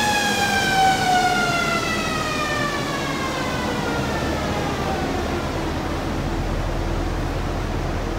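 Gen6 Camaro SS coasting down on a chassis dyno after a power pull: a high whine from the spinning drivetrain and dyno rollers falls steadily in pitch and fades out over about six seconds, over a steady low rush.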